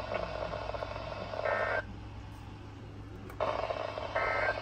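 Two short bursts of EAS/SAME digital data tones from a weather radio broadcast, warbling between two high pitches, about two and a half seconds apart over radio hiss: the end-of-message code closing the severe thunderstorm warning.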